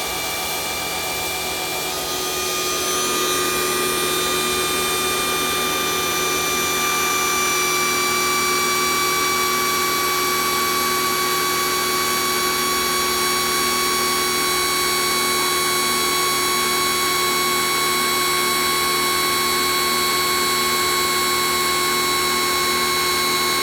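Kioles 3000 PSI electric pressure washer motor and pump running on without cutting off, with a high-pitched whine. About two seconds in it grows louder and the whine then sinks slowly in pitch. This is the defect the owner complains of: the motor never stops when the trigger is released.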